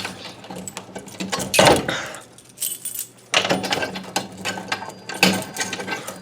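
A bunch of keys jangling and clinking in several irregular bursts.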